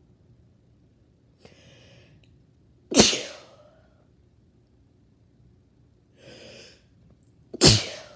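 A person sneezing twice, about four and a half seconds apart. Each sneeze comes after a quick breathy intake a second or so before.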